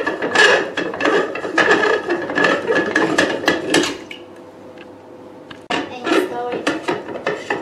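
Clear plastic wastewater bottle of a hydra facial machine being handled and pulled off its mount, with rapid knocking and clattering of hard plastic. There is a lull of about a second and a half just past the middle, then the clatter starts again.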